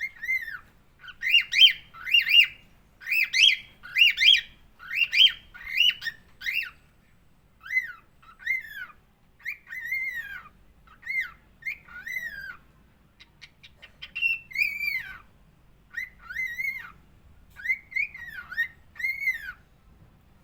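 Cockatiel whistling a long string of short, arched up-and-down notes, fast and bunched in the first half, then more spaced single whistles.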